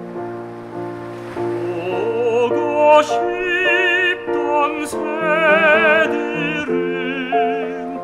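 Tenor singing a Korean art song (gagok) in operatic style, with wide vibrato, over piano accompaniment. The piano plays alone at first, and the voice comes in about two seconds in.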